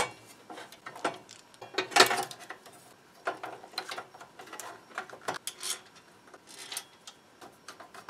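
Screwdriver undoing a screw and hands fitting cables and a battery connector into a UPS's sheet-metal chassis: irregular clicks, scrapes and small metallic knocks, the loudest knock about two seconds in.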